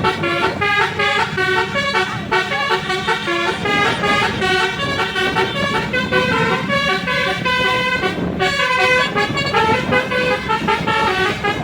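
Telolet multi-tone musical air horn on a Basuri bus playing a quick melody, its notes changing pitch several times a second, with a brief break about eight seconds in. A steady low hum runs underneath.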